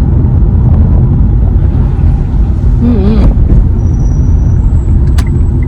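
Road and engine rumble inside a moving car, heavy in the low end. A brief voice sound comes about three seconds in, and a sharp click near the end.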